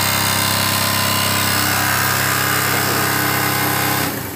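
Small motorcycle engine idling with a loud, buzzy metallic rattle from the chrome muffler cover; it is switched off about four seconds in. The noise comes from the exhaust cover knocking against the muffler because its rubber spacer is the wrong kind.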